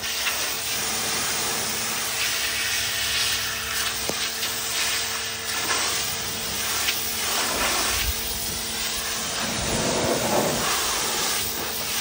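Pressure washer jet spraying against a muddy tractor tyre: a continuous hiss of high-pressure water, with a faint steady hum underneath through the first half.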